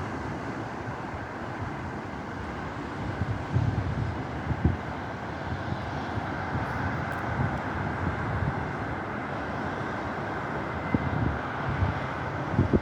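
Strong wind blowing steadily, with gusts buffeting the microphone in low rumbles about four seconds in and again near the end.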